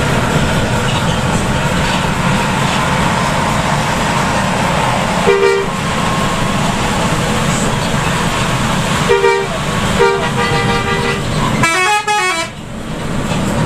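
Bus horn sounding over the steady drone of road and rain noise heard from inside a coach cabin: a short two-tone blast about five seconds in, two more around nine and ten seconds (the second about a second long), then a brief melodic horn whose pitch wavers up and down near the end.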